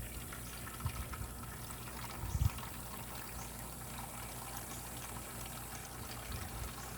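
Liquid pouring and trickling steadily, with a couple of faint low knocks.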